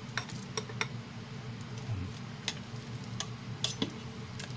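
A spoon taps and scrapes against a stainless steel cooking pot as sago pearls are added to simmering coconut milk and stirred in. About nine scattered sharp clinks sound over a steady low hum.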